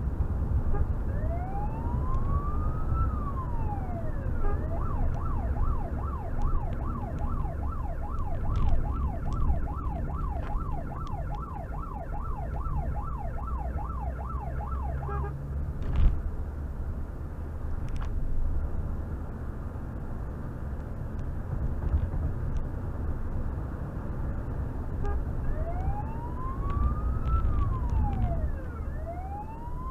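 Police car's electronic siren heard from inside the cabin: a slow wail rising and falling, switching a few seconds in to a fast yelp of about two sweeps a second, which stops about halfway through; the slow wail returns near the end. Engine and tyre noise run underneath, with a single sharp thump in the middle.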